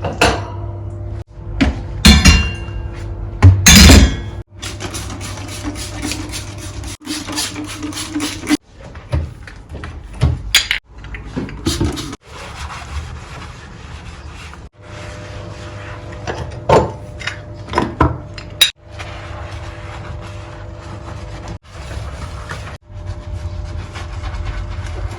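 Metal kitchen-stove parts knocking and clinking as they are handled and cleaned, with stretches of quick repeated rubbing strokes, over a low steady hum. The sound is broken into short pieces that cut off abruptly every few seconds.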